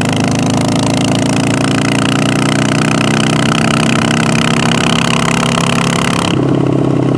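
Harley-Davidson Sportster's air-cooled V-twin running loud at highway speed, its pitch sinking slightly as it eases off. About six seconds in, the sound changes abruptly and the hiss over it drops away. The exhaust is especially loud because the flange nuts on the front exhaust have fallen off.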